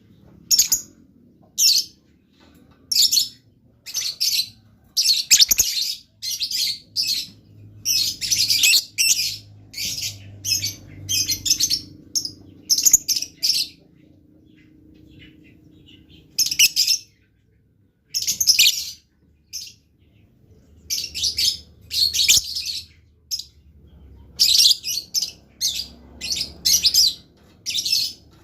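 Blue lovebird chattering: quick runs of short, high chirps, with a lull of a few seconds about halfway through.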